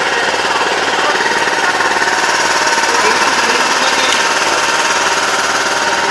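Small engine of an Iseki walk-behind tiller running steadily with a fast, even chugging pulse, with people talking under it.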